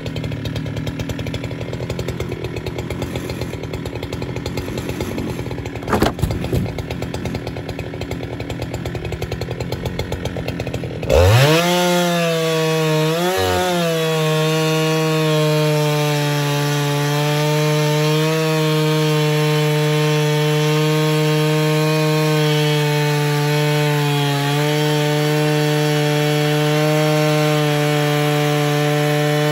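Husqvarna 395XP two-stroke chainsaw on an Alaskan chainsaw mill, idling for about eleven seconds with a single knock about six seconds in. It is then throttled up to full speed and held steady as it rips along a fir log, dipping briefly twice under load.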